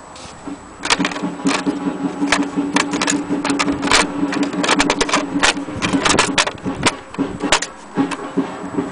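Vintage Erika portable typewriter being typed on: irregular sharp key strikes, two or three a second, over a steady low hum.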